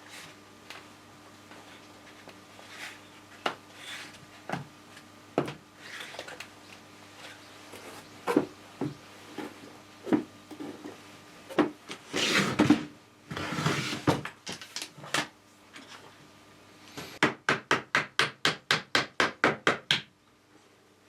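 Workshop handling noises: scattered knocks and clatter, then two short passages of rubbing or scraping. Near the end comes a quick run of about a dozen evenly spaced strikes, about four a second, like light hammering.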